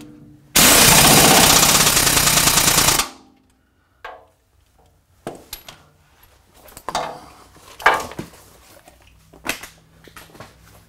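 Impact wrench hammering for about two and a half seconds as it runs a mounting bolt down tight on the lathe bed's pedestal. Then a few scattered knocks and clanks.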